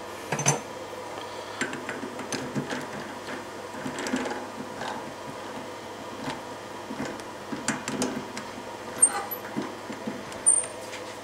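Irregular small metal clicks and taps as a ballscrew end and its bushing are handled and seated in a lathe collet, over a steady hum. The loudest knocks come about half a second in, about nine seconds in and shortly before the end.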